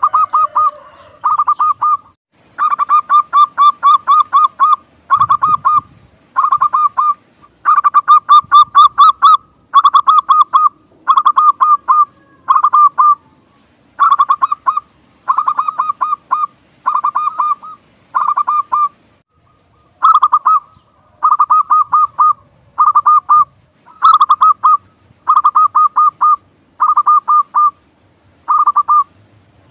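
Zebra dove (perkutut) cooing: short phrases of rapid staccato coos, repeated about once a second with brief gaps between them.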